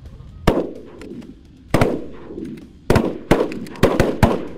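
Several shotguns firing at incoming Canada geese: about six sharp bangs in quick, uneven succession, each with a short echo.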